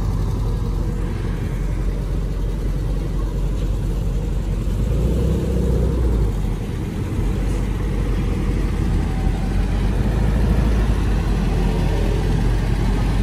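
Air-cooled flat-four engine of a Volkswagen Type 2 bay-window bus running at low revs as the bus moves slowly across the lot, a steady low rumble.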